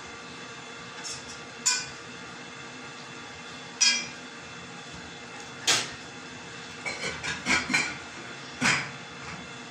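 Scattered sharp clinks and knocks of a glass baking dish as gloved hands press and turn a stuffed whole chicken in it, with a quick run of them about seven seconds in, over a steady faint hum.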